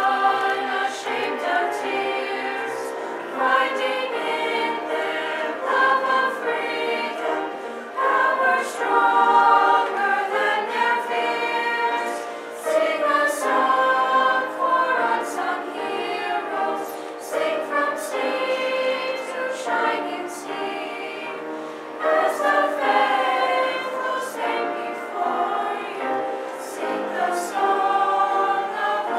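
A school choir of mixed teenage voices singing together in sustained, held phrases.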